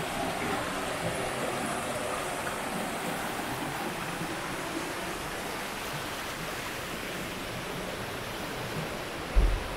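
Steady rush of flowing water, with one brief low thump near the end.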